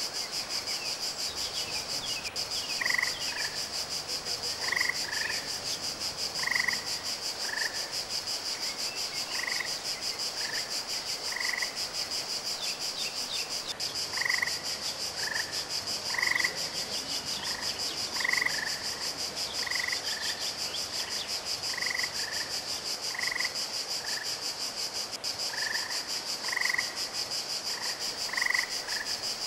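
Frogs croaking in short repeated calls, roughly one a second, over a steady high-pitched buzz.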